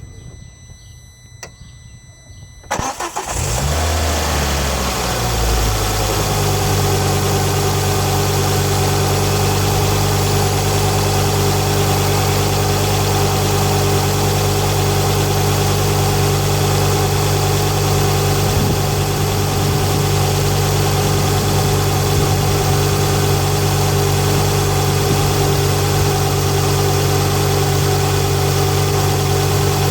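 Ford Focus ST 225's turbocharged five-cylinder engine cranking and catching about three seconds in, flaring briefly and then settling into a steady idle. Before the start there are a couple of faint clicks and a thin high whine.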